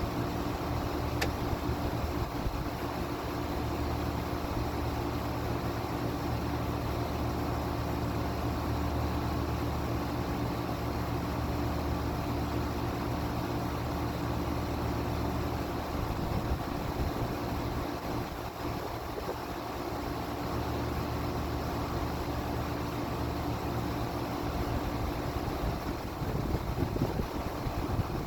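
Carrier Comfort central air conditioner with an Emerson Copeland scroll compressor running: a steady hum with a few held low tones under an even rush of fan air. A small click comes about a second in.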